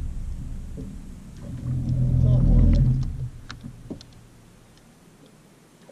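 A low, steady engine rumble that fades away a little after three seconds, followed by a few light clicks.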